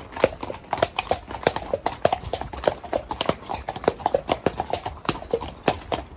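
Horses' hooves clip-clopping on a wet tarmac lane: several horses together, giving an uneven run of sharp hoof strikes several times a second.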